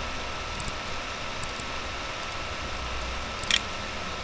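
Computer mouse clicking a few times, each click a quick press and release, the loudest about three and a half seconds in, over a steady hiss.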